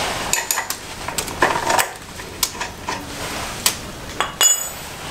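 Scattered light clicks and metal-on-metal clinks from hand work at a motorcycle's rear brake caliper, with one clink ringing briefly near the end.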